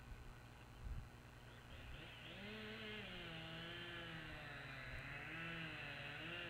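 A distant motor engine fades in about two seconds in and keeps running, its pitch wavering slowly up and down, over a low steady rumble. A brief thump comes about a second in.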